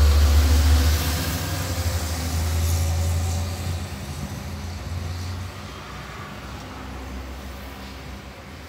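A motor vehicle going past on the road, a low rumble that is loudest at first and fades away over about five seconds.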